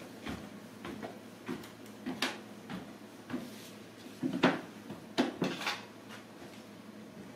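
Footsteps on wooden stairs, a series of single thuds roughly every half second to a second, then a few louder knocks and bumps between about four and six seconds in.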